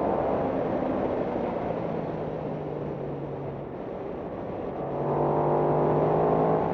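Racing motorcycle engine heard from on board at speed, with wind noise: the engine note is lower and quieter, off the throttle, through the first few seconds. About five seconds in the rider gets back on the throttle and the note climbs as the bike accelerates.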